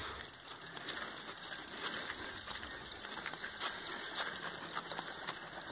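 Rapid ticking of a mountain bike's freewheeling rear hub as the bike is pushed along, with a dove cooing in the background.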